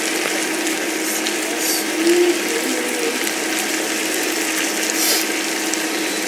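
Chicken adobo pieces frying in a nonstick pan: a steady sizzle with fine crackling. The sauce has cooked down, so the chicken is now frying in its own rendered oil.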